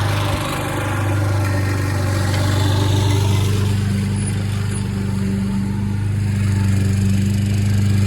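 Walk-behind lawn mower's small petrol engine running steadily at a constant speed, with a slight dip in level about half a second in.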